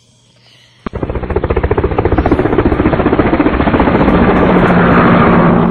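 Barbie toy helicopter's built-in helicopter sound effect: a fast, steady rotor chopping from its small speaker, switched on with a click about a second in.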